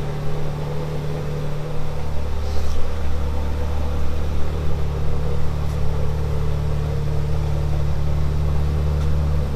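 Ferrari 458 Speciale's 4.5-litre naturally aspirated V8 idling steadily and loud.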